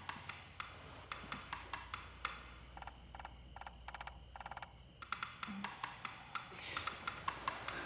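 Woodpecker pecking on wood: quick bursts of rapid, evenly spaced taps with short pauses between them.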